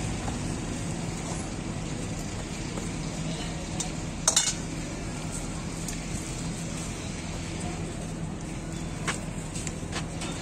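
Halved buns sizzling as they are pressed and toasted on a hot steel griddle, over a steady low hum. A sharp clatter sounds about four seconds in.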